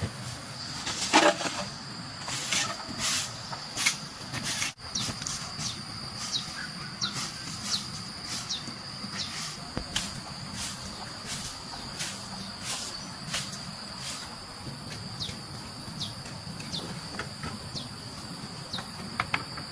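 Insects droning with a steady high-pitched whine, over a run of short, sharp, noisy strokes that come about twice a second and are loudest in the first few seconds.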